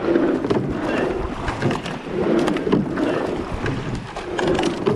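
Eight-oared rowing shell under way at racing pace: sweep oars splashing through the water and water rushing along the hull, with sharp clicks and knocks from the oars in their gates, and wind on the microphone.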